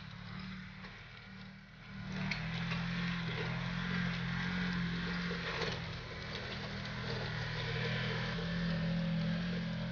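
Polaris RZR 900 side-by-side's twin-cylinder engine running steadily as it pulls a disc harrow across the field, getting louder about two seconds in.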